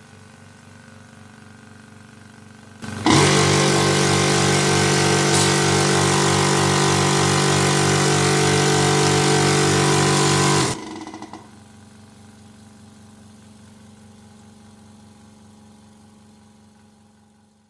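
Small conventional oil-free (dry-type) air compressor starting suddenly and running loudly for about eight seconds, then cut off abruptly. A much quieter steady hum is heard before and after it.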